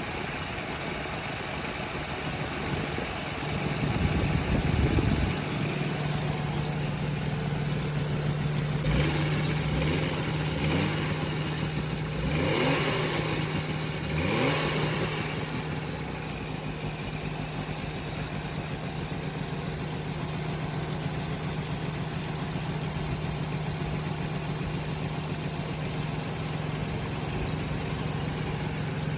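Suzuki Jimny SJ30's engine running with its air-conditioning compressor making an abnormal noise, which the owner suspects comes from low compressor oil. A steady hum runs throughout, and the pitch sweeps up and down several times in the first fifteen seconds.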